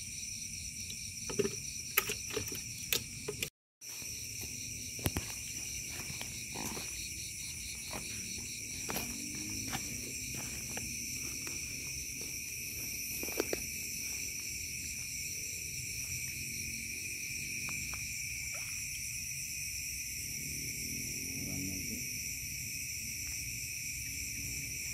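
Night insect chorus, crickets and other insects trilling steadily at several high pitches, with scattered short clicks and knocks from handling nearby. The sound breaks off for a moment about three and a half seconds in.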